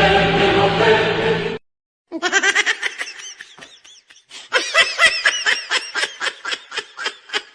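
A burst of music that cuts off suddenly about a second and a half in, then a rapid run of laughter in short repeated pulses, several a second, fading near the end.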